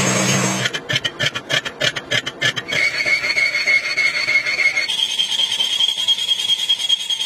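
Lathe tool cutting across the face of a large metal flange. First comes about two seconds of rapid, evenly spaced ticking, then the tool settles into a steady high-pitched squeal that jumps to a higher pitch about five seconds in.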